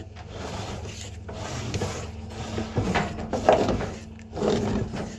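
Irregular rubbing and scraping from a drain inspection camera's push-rod cable being worked through the pipe, with a few louder scrapes near the middle and end, over a steady low electrical hum.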